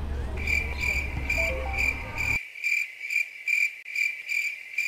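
Crickets chirping sound effect, a high, even chirp repeating about four times a second. It starts abruptly, and the street background under it is cut away partway through.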